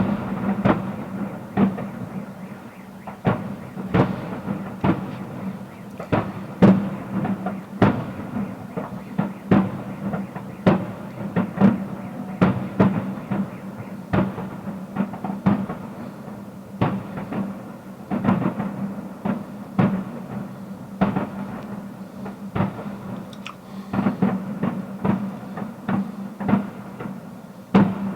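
Fireworks display: shells bursting in an irregular run of bangs, about one or two a second, over a steady low hum.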